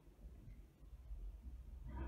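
Quiet room tone with a steady low hum; near the end a pen stroke starts scratching across paper.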